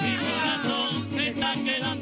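Golpe tocuyano played by a small string ensemble of cuatros and guitars, strummed to a brisk, even beat, with men's voices singing a line that slides downward at the start.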